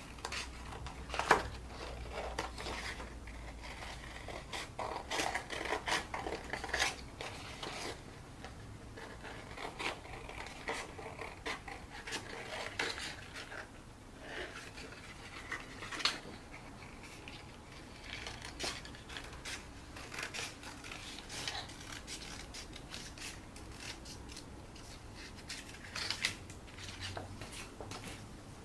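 Scissors cutting through an egg box: irregular snips and scraping strokes with short pauses between them, a sharp snip about a second in and another about halfway through.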